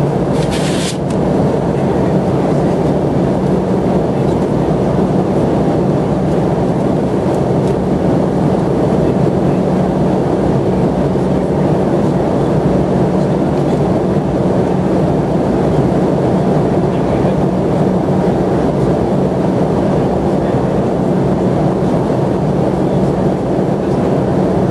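Steady airliner cabin noise: the drone of the engines and rushing air, with a steady low hum underneath. A brief hiss just under a second in.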